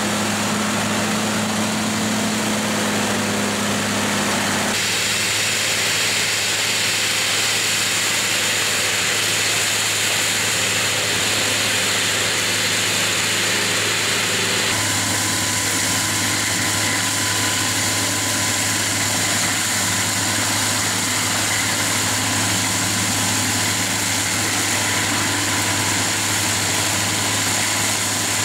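JCB tractor engine running steadily under load while driving PTO-powered FAE implements, a tiller churning soil and a mulcher shredding brush. The sound changes abruptly about five seconds in and again about fifteen seconds in.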